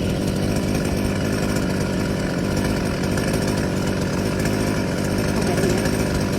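Chainsaw engine running steadily at a constant pitch.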